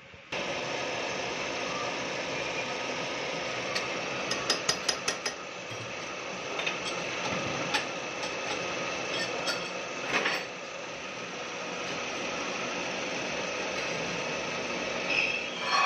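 Crankshaft grinding machine running with a steady mechanical noise and a faint hum. About four seconds in comes a quick run of sharp clicks, followed by scattered single clicks and a brief louder burst.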